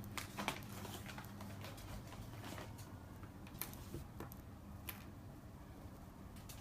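Scattered light taps and ticks of a pet's paws and claws moving on a floor, a couple of sharper clicks near the start, over a steady low hum.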